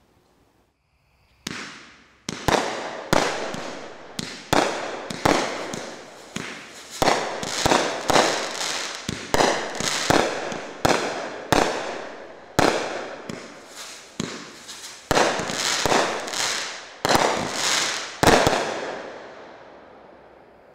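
Black Cat Bull Run, a 20-shot 200-gram firework cake, firing: about twenty sharp reports at roughly one a second, starting about a second and a half in, each followed by a short fading tail, the last about eighteen seconds in.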